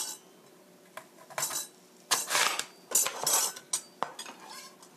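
Large kitchen knife cutting a whole apple in half on a cutting board: a string of short crunching slices through the fruit and knocks of the blade on the board.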